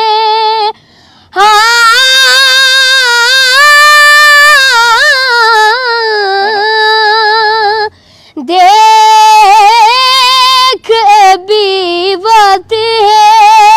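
A boy singing an Urdu naat without accompaniment in a high voice, holding long, ornamented notes that waver and slide. The singing breaks off twice for a breath, about a second in and again near eight seconds.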